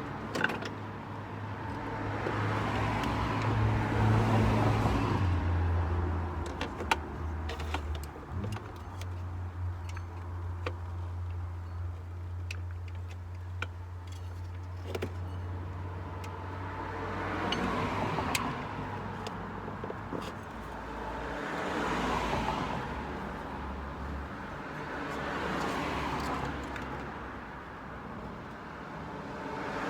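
Road traffic passing by, swelling and fading several times, over a steady low hum, with scattered small metallic clicks and clinks of hand tools as a car's auxiliary belt is worked onto its pulleys.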